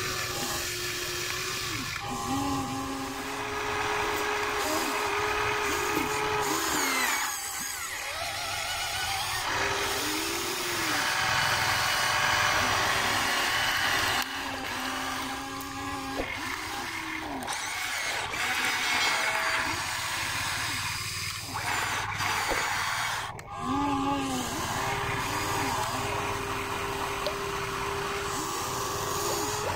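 Electric gear motors of a Huina remote-control excavator whining as the boom, arm and bucket move, the pitch rising and falling with each movement and stopping briefly between moves.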